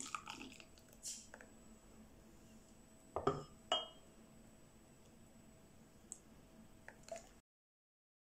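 A metal ladle serving thick soup into a ceramic bowl: a soft pour and clatter at the start, two sharp clinks of the ladle against the china about three seconds in, then a couple of light taps. The sound cuts off suddenly near the end.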